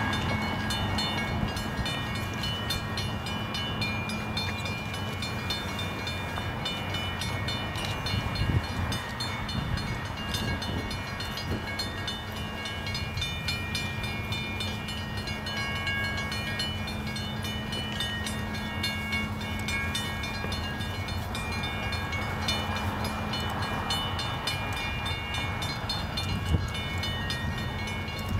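Railroad grade-crossing warning bell ringing steadily, with a low steady hum from a diesel train approaching in the distance underneath.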